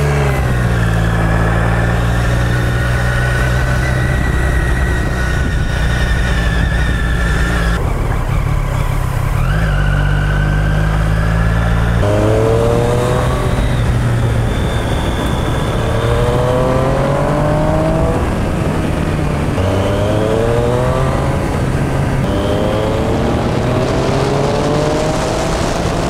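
Superbike engine under way, holding a fairly steady note for the first several seconds, then rising in pitch again and again from about halfway in as it accelerates through the gears. The raw engine and exhaust sound is left unnarrated.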